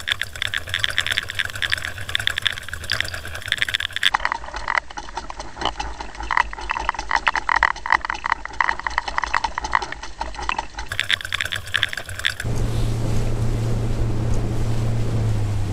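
Fishing reels paying out line for trolling, their clickers ticking rapidly; the ticking drops lower in pitch about four seconds in and rises again near the end. In the last few seconds it gives way to a steady boat motor hum with wind noise.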